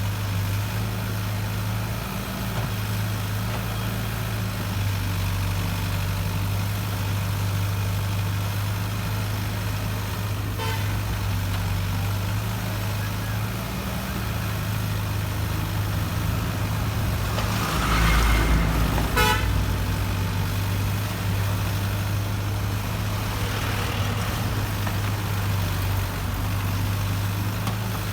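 Heavy diesel engine of an excavator running at a steady drone, with a louder burst of low rumble and a short rattle about two-thirds of the way through.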